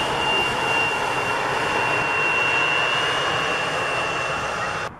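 Bombardier CRJ-900 regional jet rolling along the runway, its two rear-mounted General Electric CF34 turbofans giving a steady roar with a high whine on top. The sound cuts off abruptly just before the end.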